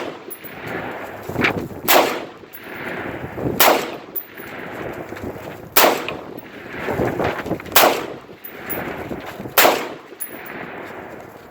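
Smith & Wesson AR-15 rifle firing single shots, five of them about two seconds apart, each a sharp crack with a short ringing tail.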